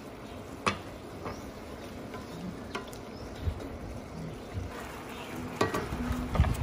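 A ladle and slotted spoon clinking against an enamelled cast-iron braiser and a steel saucepan as shrimp broth is ladled in and stirred, a few sharp clinks over a steady low hiss of the simmering sauce. The loudest clink is about a second in.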